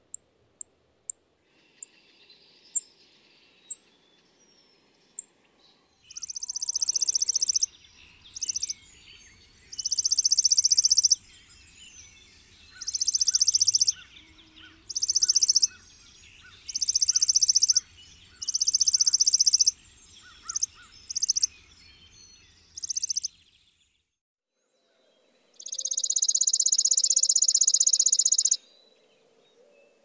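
Chipping sparrow singing: a few sharp, very high chip notes, then a string of dry, rapid, even trills of varying length, the longest about three seconds near the end.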